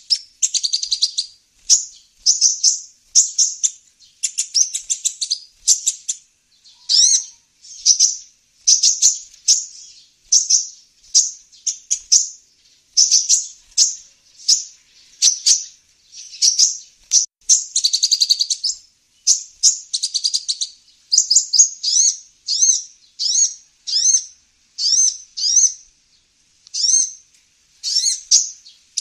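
Kolibri ninja sunbird calls used as a lure: sharp high chirps repeated about once or twice a second, broken now and then by short rapid twittering trills.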